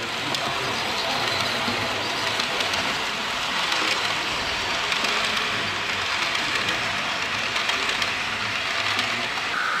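Model trains running on a model railway layout: a steady whirring rattle of small wheels on track, with many fine clicks.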